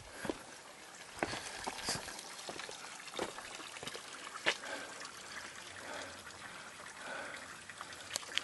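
Water trickling, with irregular sharp drips or splashes.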